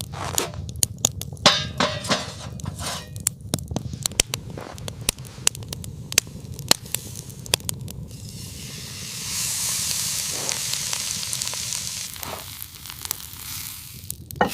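Dense, irregular crackling and sharp snapping clicks, giving way about eight seconds in to a steady high hiss that lasts several seconds.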